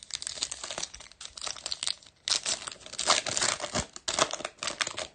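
Foil wrapper of a Topps Chrome trading card pack crinkling and tearing as it is ripped open by hand, in bursts of quick crackles, loudest a little over two seconds in and again around three to four seconds in.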